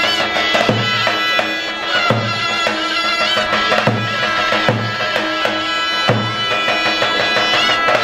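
Albanian folk dance music: a large double-headed drum beats a loping dance rhythm, about one low stroke every two-thirds of a second, under a shrill reed wind instrument playing a sustained, ornamented melody.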